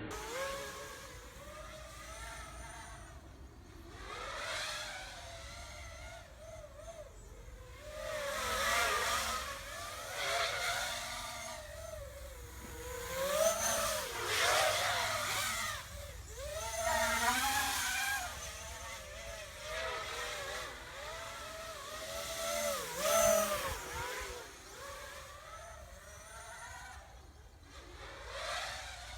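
FPV racing quadcopter's brushless motors (Xnova 2204 2300 KV on a Vortex 250 frame) whining, the pitch swooping up and down again and again with the throttle, with louder surges every few seconds.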